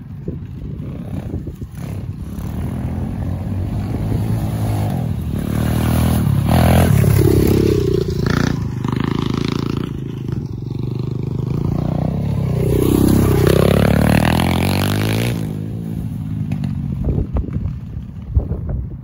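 Small oil-cooled 140cc dirt bike engine revving up and down as the bike rides around. It grows loudest twice, about a third of the way in and again past the middle, then fades off.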